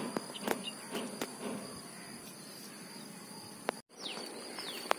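Steady high chirring of insects, with a few sharp clicks and small splashes from fish caught in a mesh net in shallow water. The sound drops out for an instant near the end, followed by a few short falling chirps.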